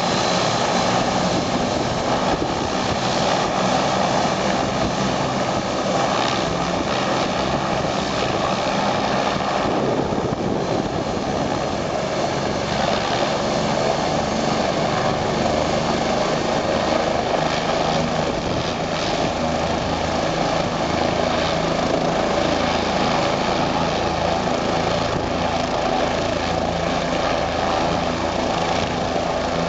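Bell 407GX helicopter running on the ground with its rotors turning, with a steady turbine whine and rotor noise from its single Rolls-Royce 250-C47B turboshaft engine.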